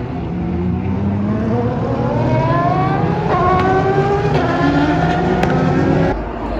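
Race car engine accelerating hard, its pitch climbing steadily, then dropping at an upshift about halfway through and climbing again through the next gear. The engine sound cuts off suddenly near the end.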